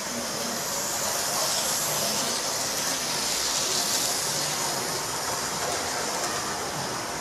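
Model train running round its track, a steady hissing rumble of the locomotive's motor and wheels that grows a little louder between about one and a half and four and a half seconds in as the train passes close.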